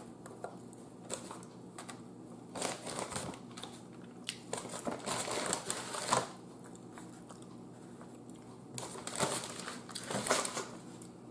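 Brown paper takeout bag rustling and crinkling as it is handled, in three bursts with small clicks between them.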